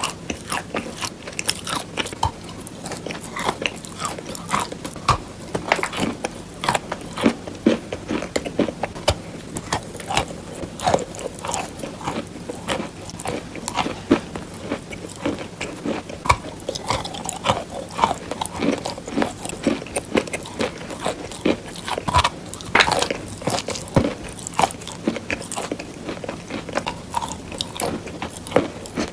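A person biting and chewing a chunk of white eating chalk: a steady, irregular run of crunches and sharp clicks, several a second.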